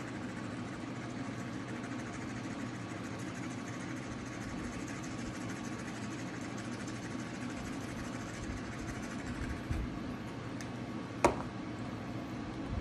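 A steady low mechanical hum, with one sharp click about eleven seconds in.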